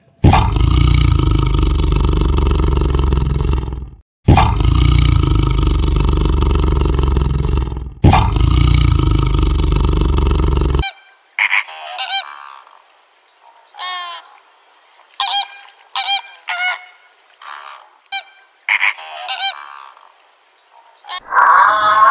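A tiger roaring in three long bouts of about four seconds each. Halfway through, these give way to flamingos calling in a series of short, separate honks.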